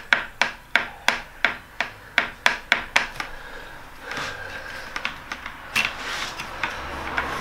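Skil cordless track saw rocked side to side on its aluminium guide rail, its base knocking against the rail with a click about four times a second: the sideways play in the saw-to-rail fit. From about four seconds in, the clicks give way to a rubbing, scraping noise as the saw is shifted on the rail.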